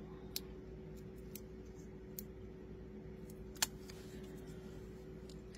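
Faint, scattered small clicks and ticks of fingers handling a paper die-cut and peeling the backing from foam adhesive dots, the sharpest about three and a half seconds in, over a steady hum.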